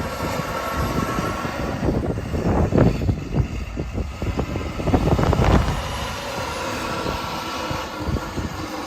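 Heavy farm machinery running: a steady engine rumble with uneven, noisy surges.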